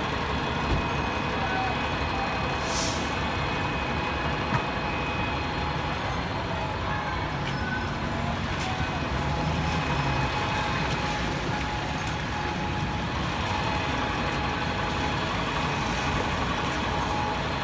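Traffic on a wet city street, led by a double-decker tour bus running close by, with the hiss of tyres on wet road. A short hiss comes about three seconds in.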